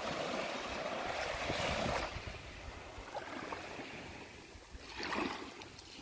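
Small waves breaking and washing up a sandy beach: one loud wash for about the first two seconds, then a softer surge about five seconds in.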